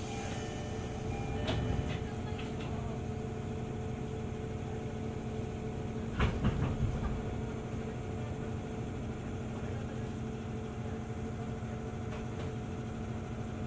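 Running sound inside a JR 205 series electric train car at steady speed: a constant rumble with a low steady hum. A few wheel knocks come about a second and a half in, and a louder cluster of clacks over a rail joint comes about six seconds in.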